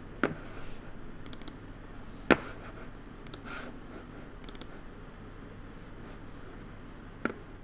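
A few sharp, scattered clicks and knocks over a faint, steady low hum, the loudest knock about two seconds in.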